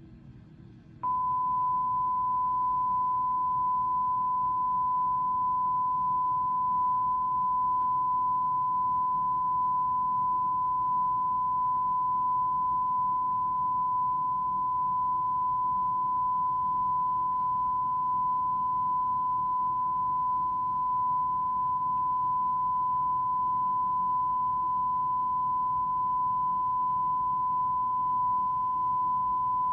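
A single steady, high-pitched test tone coming through a television's speakers, starting suddenly about a second in and holding unchanged, over a faint low hum.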